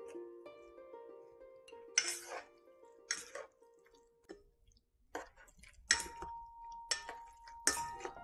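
Chopsticks tossing boiled somen noodles through a spicy sauce in a stainless steel bowl: about six short wet slaps and clinks against the metal, roughly a second apart. Soft plucked background music fades out over the first few seconds.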